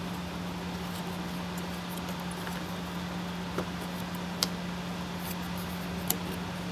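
A few light, sharp clicks as a carbon-fibre helicopter side frame panel is handled and pressed onto its tabs, over a steady low hum.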